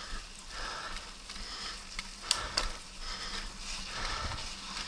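A mountain biker breathing close to the microphone, a breath about once a second. Three sharp clicks and rattles come from the bike on the rough trail about two seconds in.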